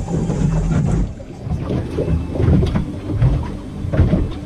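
Wind buffeting the microphone aboard a small fishing boat: a low steady hum for about the first second, then uneven rumbling and knocks.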